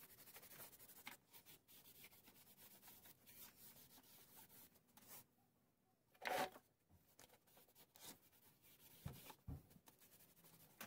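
Very faint rubbing of a cloth buffing dried clear wax on a wooden base, with one short louder rub about six seconds in and two light knocks near the end.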